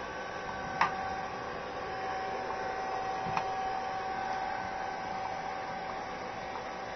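Hair dryer running steadily with a constant whine, broken by a sharp click about a second in and a fainter click a couple of seconds later.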